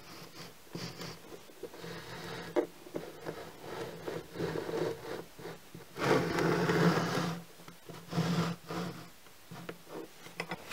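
A walnut handle blank slid across a wooden tabletop past a fixed pencil tip, which scribes a line along its edge: several stretches of wood rubbing and scraping with pencil scratching, the longest and loudest about six seconds in.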